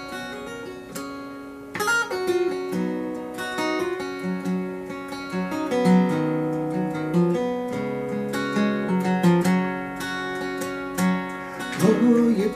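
Steel-string dreadnought acoustic guitar playing the instrumental introduction to a folk song, plucked and strummed, with a melody of changing notes over ringing bass notes.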